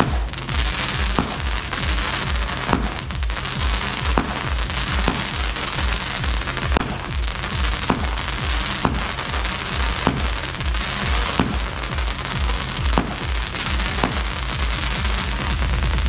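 A firework cake or roman candle firing single comet shots one after another, a sharp pop about every second or so, with a steady hiss and crackle. Background music with a steady beat plays over it.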